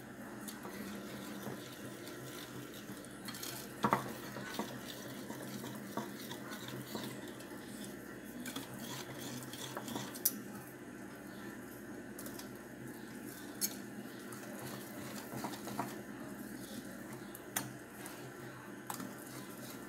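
Wire whisk stirring thick cake batter in a glass bowl, mixing in baking powder: a soft steady swishing with a few sharp clinks of the whisk against the glass.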